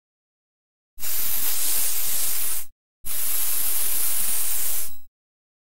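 Two bursts of steady high hissing, each just under two seconds, starting and stopping abruptly about a second apart with dead silence around them: a sound effect under the animated intro titles.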